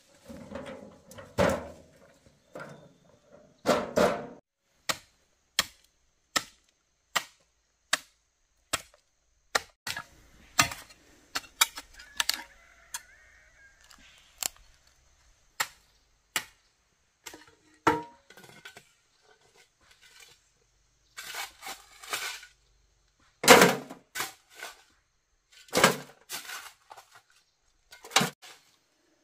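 Repeated sharp knocks, about one every three-quarters of a second for over ten seconds, then a few heavier, irregular strikes with some scraping.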